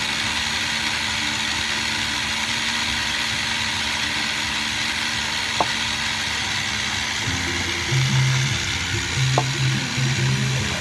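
Rice threshing machine running, a loud steady rushing noise, with two sharp clicks, one past the middle and one near the end.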